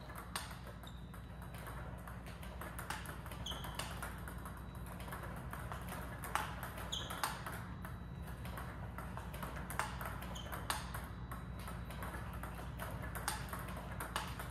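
Table tennis balls clicking off the paddle and pinging off the table as a player returns balls fed by a table tennis robot. The shots come in short groups of two or three with pauses of about two seconds between, over a low steady hum.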